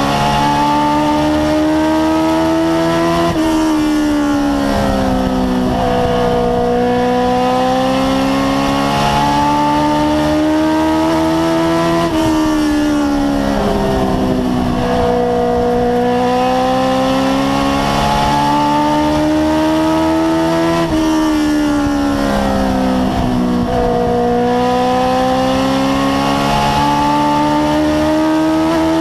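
Race car engine at racing speed, heard from inside the cockpit. Its pitch climbs steadily for several seconds, then drops sharply three times, about every nine seconds, as the car lifts into the turns and then accelerates out again lap after lap.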